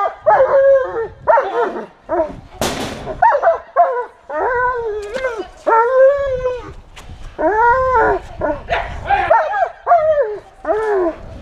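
A dog giving a long run of drawn-out, high-pitched barks, about one a second. Each one rises and then falls in pitch. There is a short hiss about two and a half seconds in.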